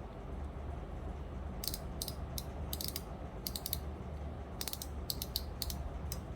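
Drag clicker of a Seahawk Lite Pro SW 800 spinning reel clicking as its front drag knob is turned, in short irregular runs of sharp clicks starting about a second and a half in. A low steady hum sits underneath.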